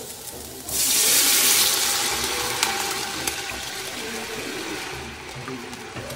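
Liquid poured into hot oil with garlic and shallots in an enamelled Dutch oven: a sudden loud hiss of sizzling starts about a second in, then slowly eases to a steadier sizzle.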